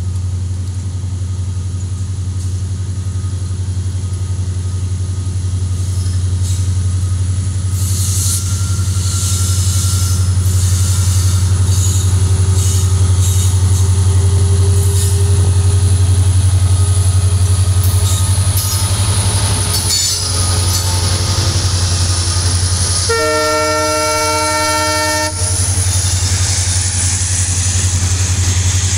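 Diesel-hauled freight train of tank wagons rolling past close by, its wheels clattering on the rails over a steady low drone that swells as the locomotive passes. About two-thirds of the way in, the locomotive's horn sounds once for about two seconds.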